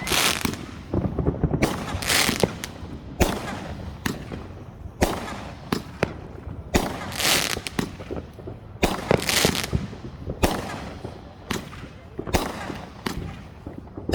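Fireworks going off: a steady run of loud bangs at irregular intervals, about one or two a second, some followed by a crackling hiss.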